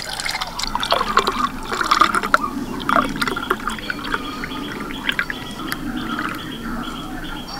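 Watermelon juice poured in a thin stream from a steel bowl into a tall glass, splashing and frothing as the glass fills.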